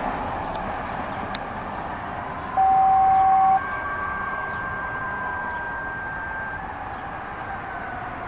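Two-tone radio dispatch page: a loud steady low tone for about a second, then straight into a higher steady tone held about three seconds. Behind it a siren wails on the responding fire apparatus.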